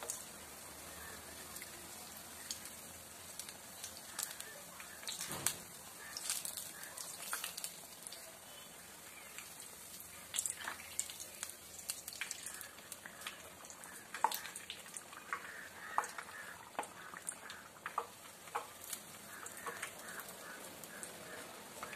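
Rice-flour appam deep-frying in hot oil in a kadai: a steady sizzle with frequent small pops and crackles.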